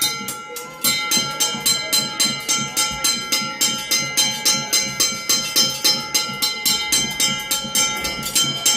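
Railroad crossing bell ringing, rapid even metallic strikes about three a second that stop near the end.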